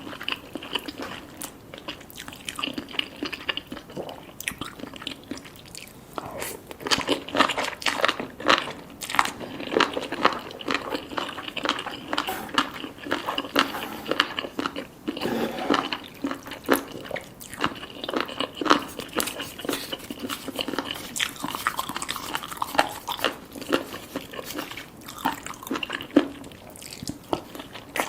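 Close-miked eating sounds: chewing and biting cheesy spicy Korean noodles, with many irregular small wet mouth clicks and smacks.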